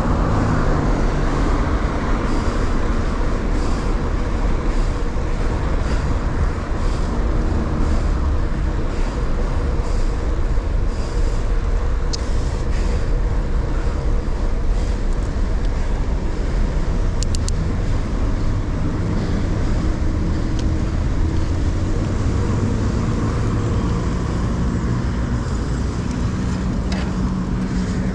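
Steady road noise while cycling in city traffic: a constant low rumble of wind and tyres with motor traffic around.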